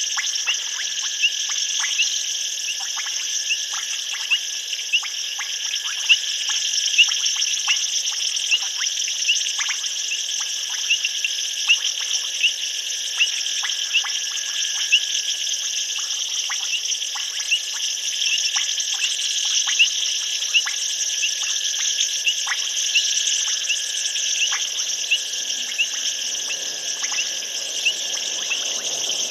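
Night chorus of insects and frogs: a steady high-pitched trill, with short chirps repeating about twice a second and scattered short clicking calls.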